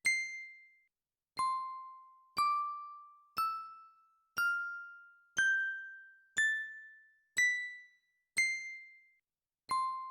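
Tuned bells struck one note at a time, about once a second, each ringing out and fading. The notes climb step by step in a rising scale of eight notes, then start again from the low note near the end.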